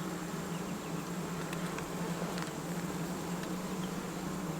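Honeybees buzzing around an opened hive during an inspection, a steady hum with a few faint ticks.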